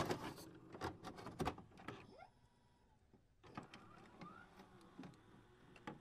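Faint scattered clicks and short ticks, loudest at the very start and clustered in the first second and a half, with a brief faint rising glide about two seconds in.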